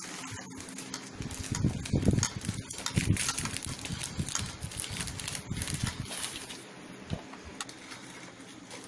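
Wooden spatula pounding and mashing fudge bar cakes in a bowl: a run of dull thuds, roughly two a second, that dies down after about six seconds.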